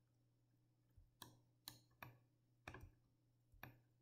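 Near silence broken by about six faint, sharp clicks, unevenly spaced: computer mouse clicks.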